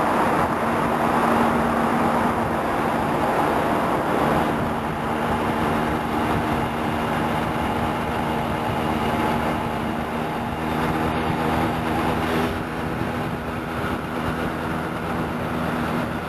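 A car driving on a highway, heard from inside the cabin: a steady engine hum under tyre and road noise.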